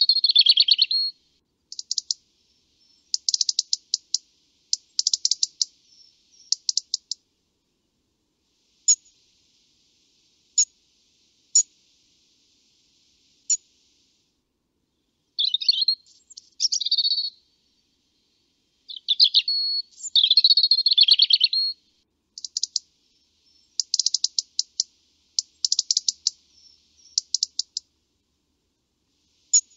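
European robin singing: high, warbling phrases and fast trills, each lasting a second or a few seconds, separated by pauses. A few short single notes fall in the quieter stretches between the phrases.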